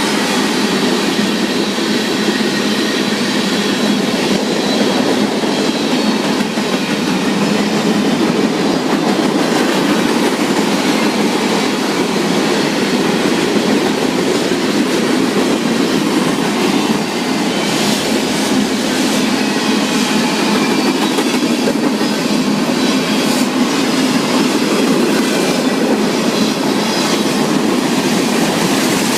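Freight train cars rolling past close by: a steady, loud rumble and rattle of wheels on rail, with repeated sharp clacks in the second half.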